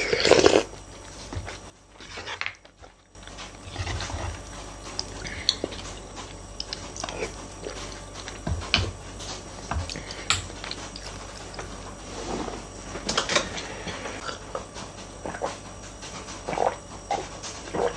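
Close-up eating sounds: chewing and slurping mouthfuls of rice and cheonggukjang soybean stew, with scattered short clicks of a spoon and wooden chopsticks against the bowls. Near the end come sips from a mug.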